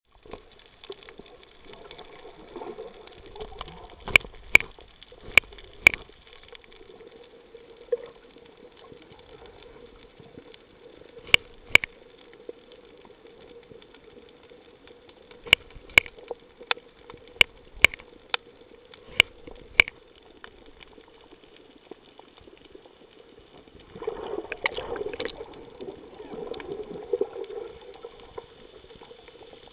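Underwater sound picked up by the filming camera: a steady faint hum with water noise, broken by loud sharp clicks in quick clusters. About four-fifths of the way through comes a few seconds of bubbling and gurgling.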